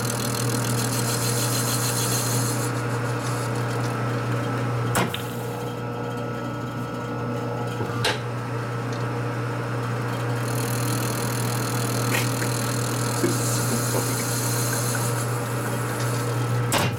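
Metal lathe running with a steady motor and spindle hum while the tool bit cuts a plastic spacer. A high cutting hiss comes and goes, in the first couple of seconds and again from about ten to fifteen seconds in, and a few sharp clicks sound along the way.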